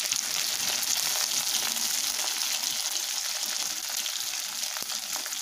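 Batter-coated chicken pieces sizzling steadily in hot coconut oil in a cast-iron wok, with a few light clicks of a slotted steel spoon as the fried pieces are lifted out.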